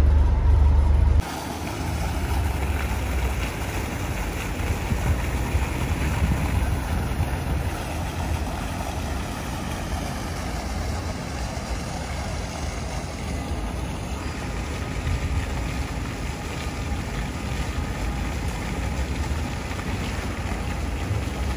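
Low road rumble inside a moving car for about a second, then a sudden cut to steady outdoor city street noise: traffic with wind on the microphone.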